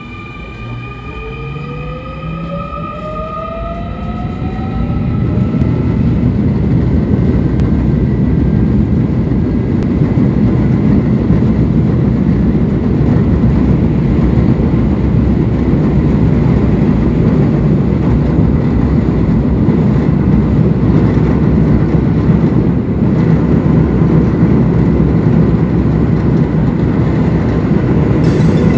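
Subway train pulling away, its traction motors giving a rising whine for the first few seconds as it gets louder, then a steady running rumble.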